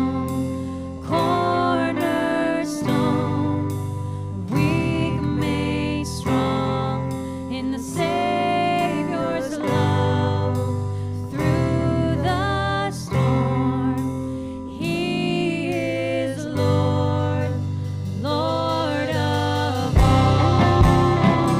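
Worship song: singing over guitar accompaniment with a steady strummed rhythm, growing louder near the end.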